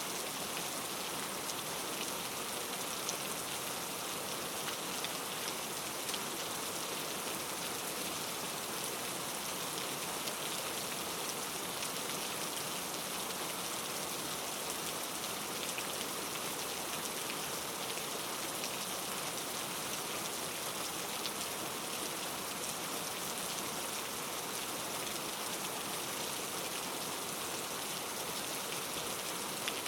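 Steady rain falling, an even hiss of rain with small scattered drops ticking on a surface.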